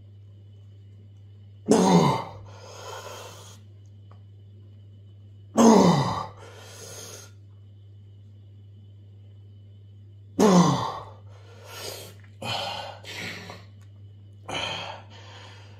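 A man's loud, forceful straining exhalations, each falling in pitch: three big ones about four seconds apart, then shorter, quicker ones near the end. This is the effort of gripping and twisting a deck of playing cards to tear it in half.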